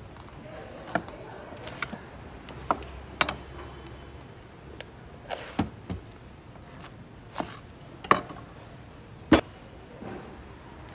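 Irregular sharp knocks of kitchen utensils, about a dozen spread over ten seconds, the loudest two in the second half, over a steady low background hum.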